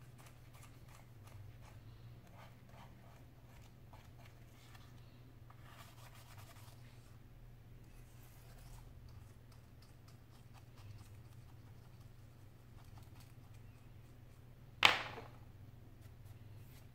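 Faint scraping and small clicks of a hand tool working around a tablet's frame, with a denser stretch of scratching about six seconds in. Near the end comes one sharp knock on the wooden desk, much the loudest sound, as a tool is put down.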